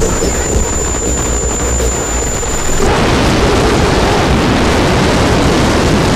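Harsh noise music: a loud, dense wall of distorted noise with a deep rumble underneath and a steady high whistle over it. The whistle cuts off about three seconds in and the noise grows thicker.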